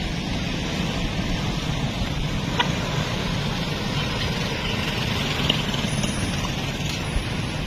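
Steady rumble of vehicle engines and road traffic close by, with one brief sharp click about two and a half seconds in.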